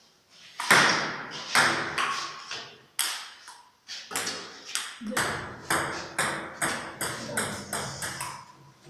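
Table tennis rally: a celluloid ball striking paddles and the table as sharp clicks, a few scattered hits at first, then a steady exchange of about two to three hits a second from about four seconds in.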